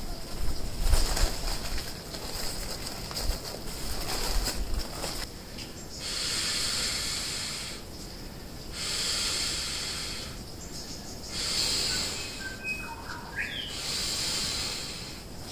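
Air being blown by mouth into the valve of an inflatable sleeping pad: four long breathy exhalations, each about a second and a half, with short pauses between for breath. Before them comes rustling as the pad is handled and unrolled.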